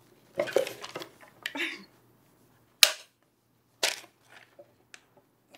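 A brief excited vocal outburst, then two sharp claps about a second apart.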